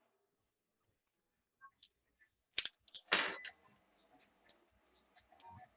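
Sharp clicks and light metallic taps from a laptop Wi-Fi module being unscrewed and unclipped, with a close cluster of clicks a little before the middle and a single click later on.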